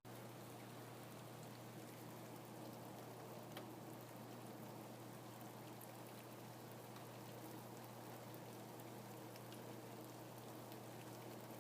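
Faint, steady rain, with scattered individual drops ticking sharper above the hiss and a steady low hum underneath.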